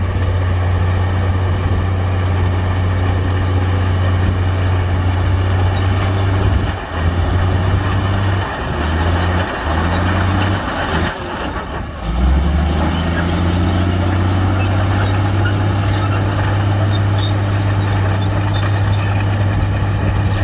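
Heavy diesel engine of earthmoving machinery running loud with a deep steady drone; about halfway through it falters and dips for a few seconds, then settles lower and climbs in pitch as it is revved up.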